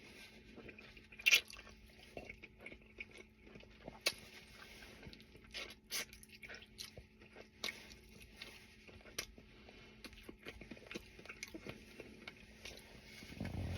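A person chewing and eating fatty barbecue pork ribs, with irregular sharp wet mouth clicks and smacks; the sharpest click comes about a second in.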